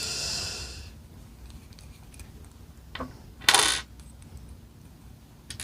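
Small metal tools and parts clinking and rattling while being handled: Allen keys and the airsoft magazine catch's cross pin. There is a short, sharp scrape-like clatter about three and a half seconds in.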